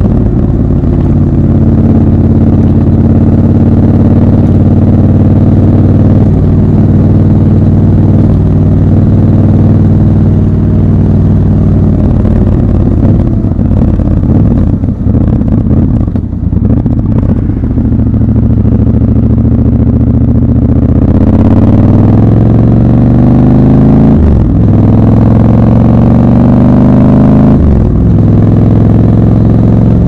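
Triumph Scrambler 1200 XC's 1200 cc parallel-twin engine, heard from on the bike while riding. It runs steadily for about twelve seconds, goes lower and rougher as the bike slows in the middle, then climbs in pitch under acceleration from about twenty seconds in, with two brief breaks as it shifts up.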